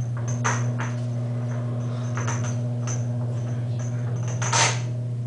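A steady low hum comes on suddenly and keeps going, with light clicks and rustles scattered over it and a louder rustle near the end.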